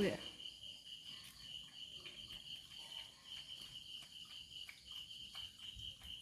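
Crickets chirping in a steady, pulsing high trill, with faint soft ticks as a small dog laps water from a bucket.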